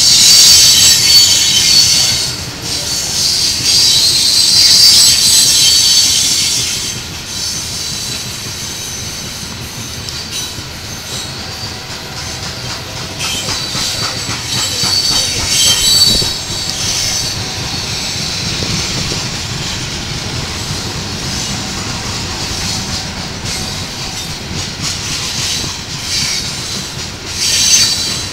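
Loaded Union Pacific coal train hopper cars rolling past at close range, their steel wheels squealing high-pitched on the rails. The squeal is loudest for the first several seconds, comes back about halfway through and again near the end, and a steady rolling rumble of the wheels fills the stretches between.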